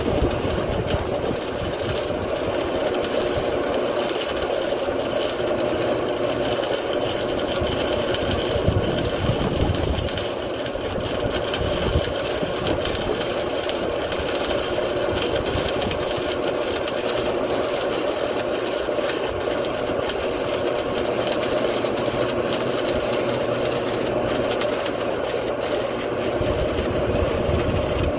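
1966 Lincoln Idealarc 250 welding transformer buzzing steadily under heavy load, with a fine crackle throughout. It is drawing about 46 to 50 amps from the 235 V supply during a load test.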